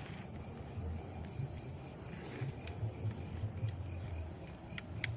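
Crickets and other night insects singing in a steady, high, continuous chorus. Soft low thumps sound underneath, with a few sharp clicks near the end.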